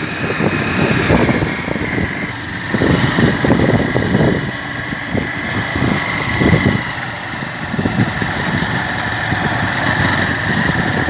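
Honda CG 150 single-cylinder engine running with the brake applied, now free of the rattle from the balancer gear that sounded like piston or connecting-rod knock; the balancer gear has just been reassembled. The sound rises and falls unevenly.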